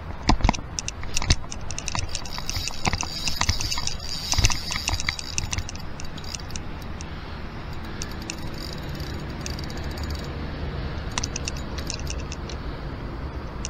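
Clicking and rattling of fishing tackle handled on a kayak: a spinning reel being worked, with light knocks on the hull. The clicks come in a dense run over the first six or seven seconds, then again briefly near the end.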